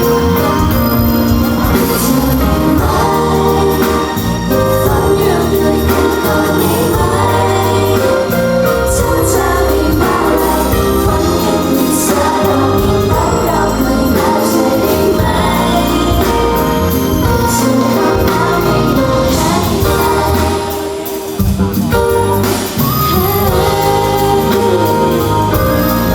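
A T-pop song playing loud: sung vocals over a pop backing track with a steady beat, thinning out briefly for a moment near the end.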